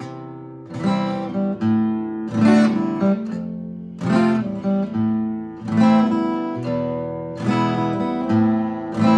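Acoustic guitar played solo, chords struck roughly once a second and left to ring.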